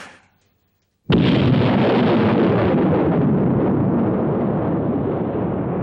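Atomic bomb explosion: after a second of silence, a sudden loud blast about a second in that rolls on as a long rumble, slowly fading.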